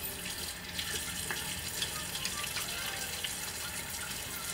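A bathroom sink tap running steadily, with a few faint splashes and ticks of hands working in the water.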